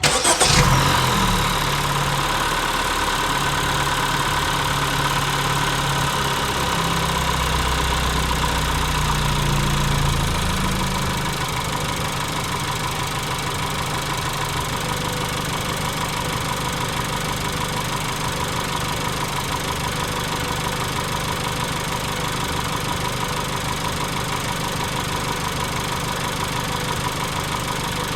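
Car engine idling. It comes in suddenly, runs a little uneven for about the first ten seconds, then settles into a steady idle.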